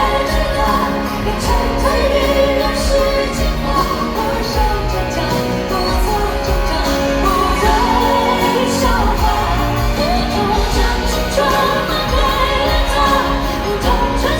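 A male singer's high, clear voice singing a Mandarin pop song live with full band accompaniment, the sung line gliding and holding long notes.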